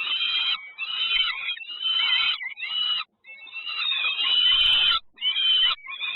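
Nestling birds calling in a high-pitched, chattering chorus with wavering, gliding notes: the begging calls of chicks being fed in the nest. The calls come in several bursts, broken off abruptly about three seconds in and again near five seconds.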